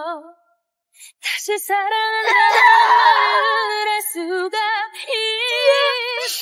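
A woman's ballad singing long held notes with vibrato, mixed with a woman crying out in anguish.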